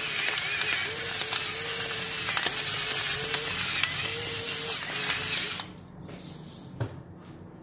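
Pepper mill grinding black peppercorns, a steady mechanical grinding that stops about five and a half seconds in; a single light knock follows near the end.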